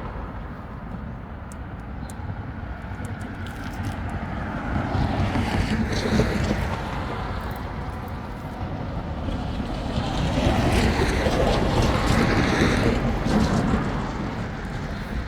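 Wind buffeting the microphone: a rumbling rush that swells twice, about five seconds in and again around ten to thirteen seconds.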